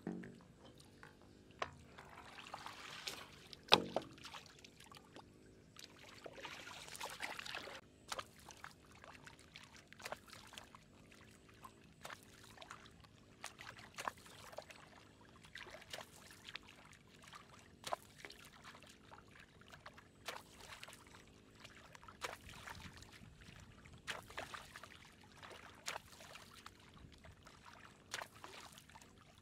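A hoe chopping into the muddy bottom of shallow water: a splash and thud about once every two seconds. Water sloshes and pours in the first several seconds.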